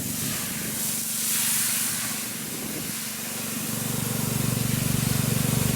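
Steady hiss of water hitting smouldering ground from a wildfire hotspot, with steam rising, over a steady low hum.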